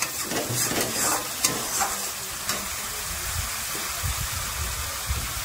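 Ground masala paste sizzling in hot oil in a pan while a spatula stirs and scrapes it. Several scraping strokes come in the first couple of seconds, over a steady sizzle. The paste is being fried down (kashano) after the oil has separated from it.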